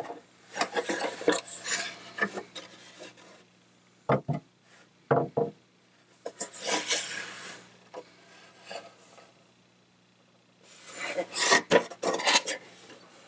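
Hands gripping and turning the hard plastic body shell of a Tamiya Toyota Hilux RC truck, rubbing and scraping in several bursts, with a couple of dull bumps about four and five seconds in.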